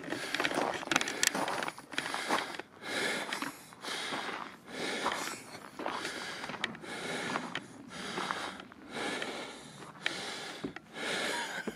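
A person breathing hard close to the microphone: repeated noisy breaths about a second long, one after another, with small clicks and scuffs of movement.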